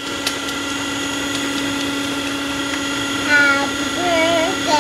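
Silvercrest electric hand mixer running at a steady speed with an even motor hum, its beaters whisking cake batter in a bowl.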